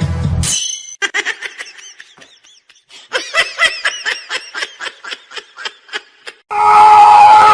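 High-pitched giggling laughter, a quick string of short notes about three a second, faint at first and fuller from about three seconds in. Music ends just before it, and a loud steady sound with held tones cuts in near the end.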